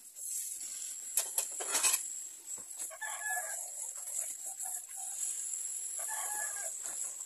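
Rooster crowing, short calls about three seconds in and again near six seconds. Dishes clatter about a second in over the hiss of tap water running into a stainless steel sink.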